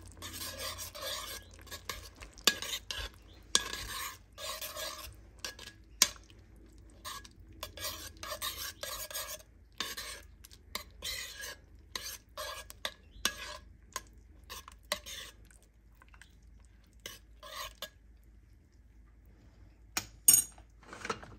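A metal spoon stirring and scraping through a thick cream sauce in a cast-iron pot, with irregular strokes and light clinks against the pot as grated parmesan is worked in. The stirring eases off about three-quarters of the way through, and a sharp clink of the spoon on the pot comes near the end.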